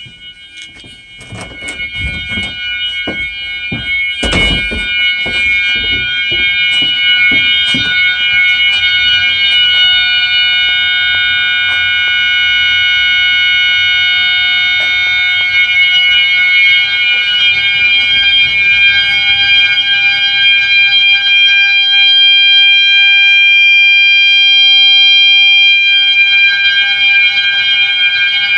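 System Sensor mass-notification sounder strobes sounding a steady, continuous 800 Hz tone, loud, building up over the first few seconds. Clicks run through the first several seconds, with a heavier knock about four seconds in.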